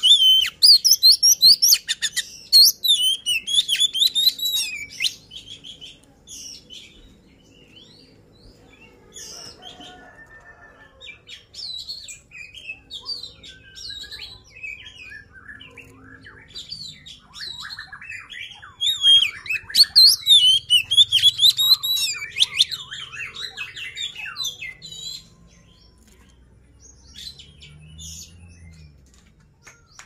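Oriental magpie-robin (kacer, poci type) singing a rapid, varied song of whistles and chattering phrases. It comes loud in two bursts, at the start and about two-thirds of the way through, with quieter phrases between. This is a vigorous territorial song of the kind used to provoke rival males into singing.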